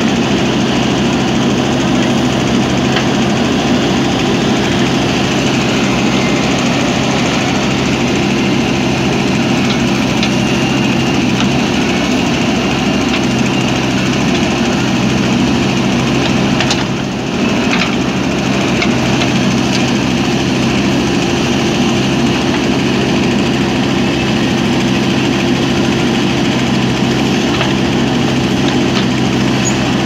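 JCB backhoe loader's diesel engine running steadily while the backhoe arm digs, with a brief dip in level a little past halfway.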